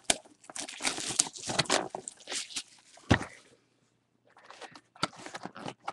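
Crackling and tearing of packaging as a trading-card hobby box is opened by hand. About three seconds in there is a single thump as the box is set down on the table, followed later by a few soft rustles.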